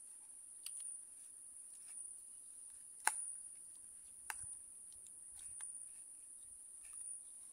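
Forks clicking and scraping on plates, a few short sharp clicks with the loudest about three seconds in, over a steady high-pitched insect drone.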